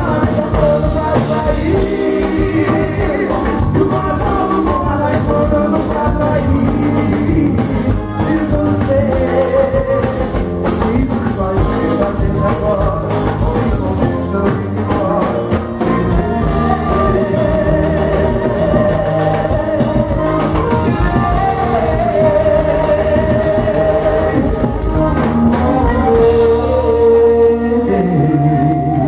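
A live band playing a sertanejo song, with a male lead singer and backing vocals over electric bass, drum kit, keyboard and accordion.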